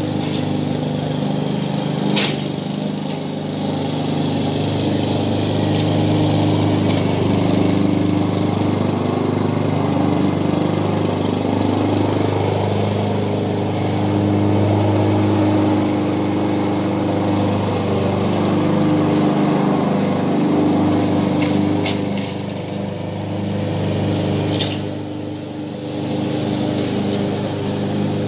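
Petrol lawn mower engine running steadily, growing louder and softer by turns, with a few sharp clicks.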